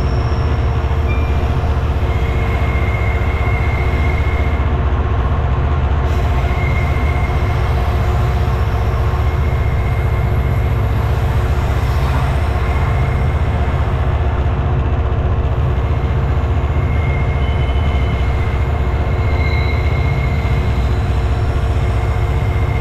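Class 59 locomotive's EMD two-stroke V16 diesel running steadily under load as it hauls a heavy aggregates train at low speed, a deep steady rumble. Short high-pitched wheel squeals come and go several times as the wheels take the curves.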